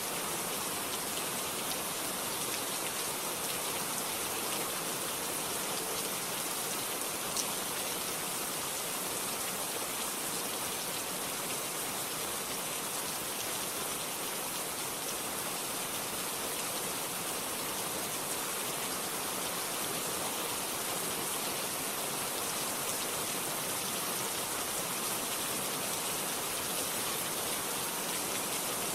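Steady rain falling, an even hiss of drops with no thunder and one small tick about seven seconds in.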